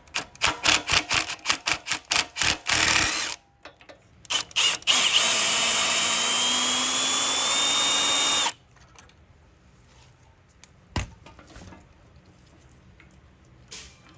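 Power driver backing out the 10mm bolts that hold the carburetor to the side of the engine block: a run of quick pulses for about three seconds, a couple of short blips, then about three and a half seconds of steady running with a slowly rising whine that stops abruptly. A single sharp click follows a few seconds later.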